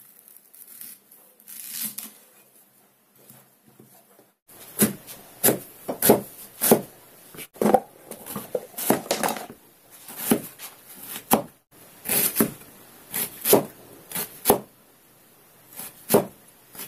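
Kitchen knife slicing an onion into half-rings on a plastic cutting board: after about four seconds of faint handling, a run of sharp knocks of the blade meeting the board, roughly two a second.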